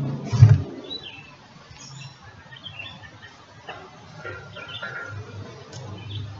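Wild birds chirping, short scattered calls throughout. A single short, loud, low thump about half a second in.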